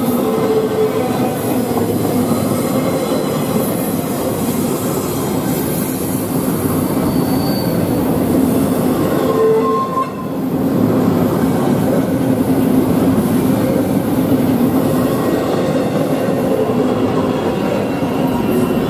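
Empty intermodal well cars of a freight train rolling past on curved track: a steady rumble of steel wheels on rail, with wheel squeal ringing over it and brief sharper squeals near the start and about nine seconds in.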